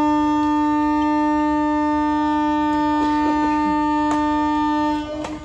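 One long, steady horn blast held for about five seconds, cutting off near the end. A few sharp badminton racket hits on the shuttlecock sound under it.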